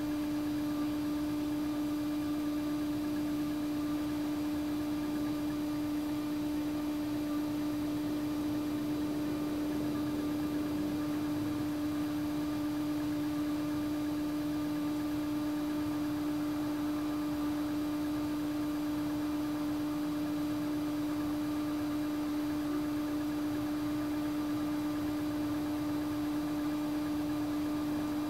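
A steady hum at one constant pitch, with fainter overtones, over an even background hiss.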